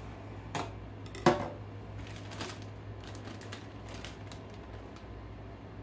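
Knife chopping green bell pepper on a plastic cutting board: two sharp knocks in the first second and a half, then a run of lighter taps.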